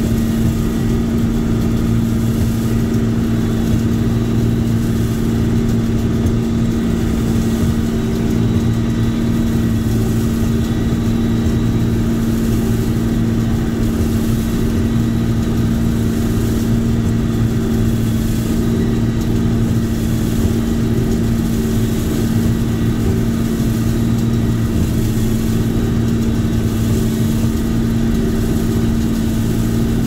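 Combine harvester running steadily while harvesting, heard from inside the cab: a constant low engine and machinery drone with an unchanging hum.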